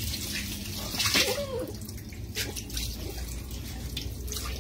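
Water running and splashing while a wet dog is bathed and scrubbed by hand on a concrete floor, with a few louder splashes.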